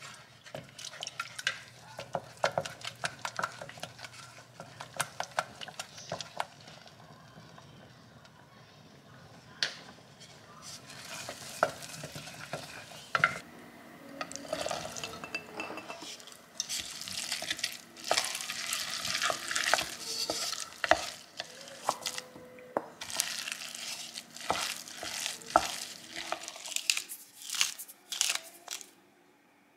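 Wooden spatula stirring and scraping a thick mashed potato and white sauce mixture in a stainless steel pot, with many light knocks and scrapes against the metal. Partway through, corn kernels are tipped in and mixed through.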